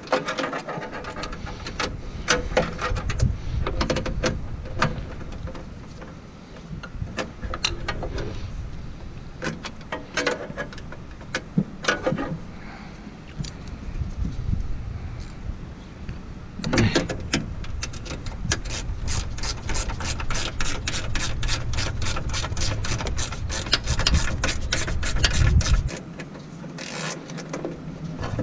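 Ratcheting wrench clicking as it turns bolts on an intake airbox. Scattered clicks and knocks come first, then a fast, even run of about five clicks a second through the second half.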